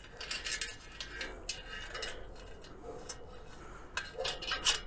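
Handling noise of a bicycle wheel being set on a scale: irregular light clicks, knocks and rubbing, with a quick cluster of clicks near the end.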